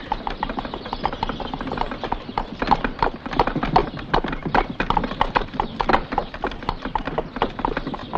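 Horses' hooves clip-clopping on hard ground in a quick, dense run of hoofbeats, growing louder over the first few seconds: a horse-drawn carriage arriving.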